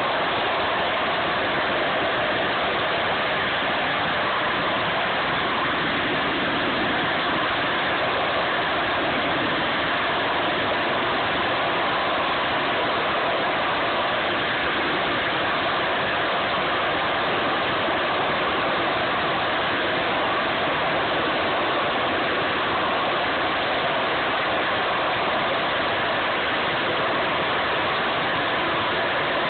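Harrier jump jet's Rolls-Royce Pegasus vectored-thrust turbofan holding the aircraft in a hover: a loud, steady jet noise with no rise or fall.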